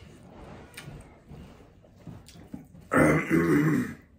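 A man loudly clears his throat in two quick rasping parts near the end, after a few seconds of soft eating sounds as he mixes rice with his hand.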